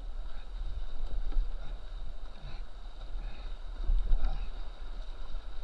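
Whitewater rapids rushing and splashing around a kayak as the paddler takes strokes, with a heavy low rumble on the microphone; the loudest splash comes about four seconds in.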